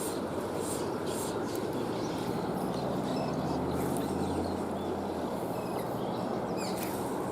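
Steady rush of river water, with short high bird chirps above it, most of them near the end. A low hum rises out of the water noise for about two seconds in the middle.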